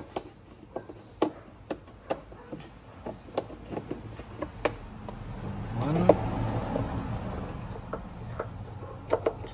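A Phillips screwdriver working screws out of the plastic battery-box cover: scattered light clicks and taps of the tool on screw and plastic. About halfway through, a vehicle engine swells up in the background, rising in pitch, then falls back.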